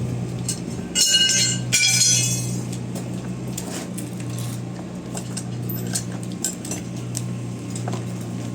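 Light metallic clinks and rattles, with two louder ringing clinks about one and two seconds in, over a steady low hum.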